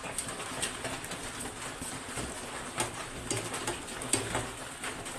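A hand squishing and mixing tiny fish with wet masala paste and oil in a steel bowl: irregular soft squelches and small clicks.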